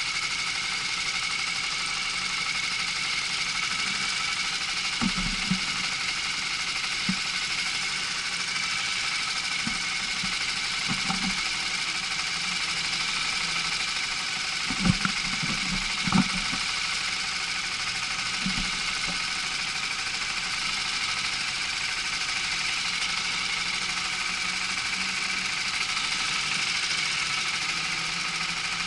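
Rental go-kart's small engine running steadily, with a handful of short thumps, two louder ones past the halfway point.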